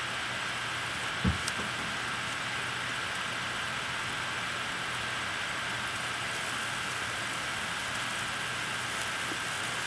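Steady background hiss with a faint constant hum, and one soft thump about a second in.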